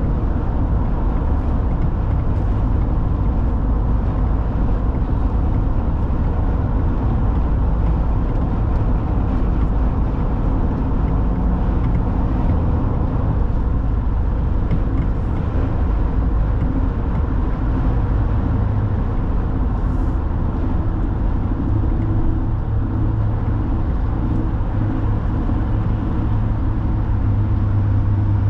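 A car cruising at highway speed, with a steady low rumble of tyre, road and engine noise and a low hum that grows stronger in the later part.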